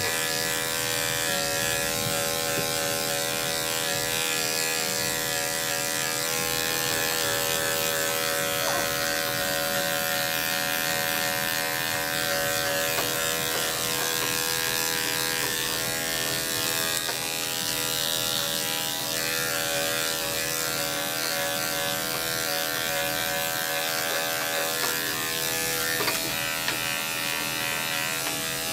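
Electric dog-grooming clippers running steadily with an even motor hum while shaving a curly-coated dog's thick coat down short.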